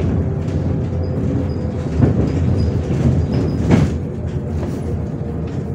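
Inside a MAZ 105.465 articulated diesel city bus on the move: steady engine and road drone, with rattling clunks from the body about two seconds in and again near four seconds.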